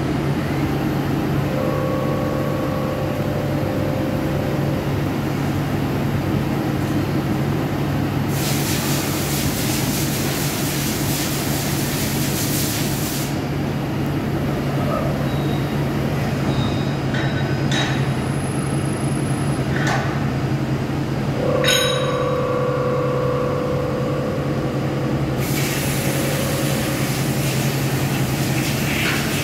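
CNC lathe machining a steel shaft: a steady machine hum throughout, with two stretches of hissing, about 8 to 13 seconds in and again from about 25 seconds on. Short steady whining tones come twice, and a sharp click about 22 seconds in.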